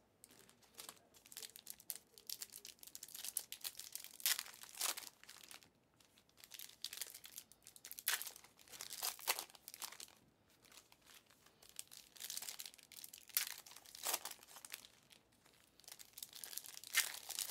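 Foil trading-card packs being torn open and handled: crinkling wrappers with spells of tearing, coming in irregular flurries with short lulls between them.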